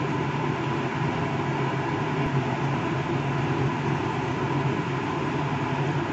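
Steady rumbling hum with an even hiss over it, from a gas stove as a kadai of watery cauliflower-and-potato curry heats toward the boil.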